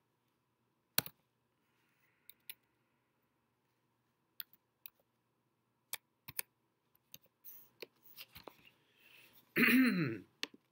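Scattered keystrokes on a computer keyboard, single sharp clicks mostly a second or more apart, a few closer together later on. Near the end a brief vocal sound falling in pitch is the loudest thing.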